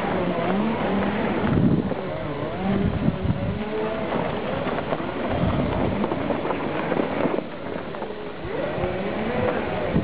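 Off-road Segway motors whining, the pitch rising and falling with the speed, over the rumble of knobbly tyres on a dirt trail.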